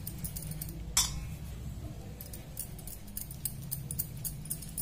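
Scattered light clicks and clinks as hands knead and pinch potato-cornflour dough in a stainless steel bowl, with one sharper click about a second in, over a steady low hum.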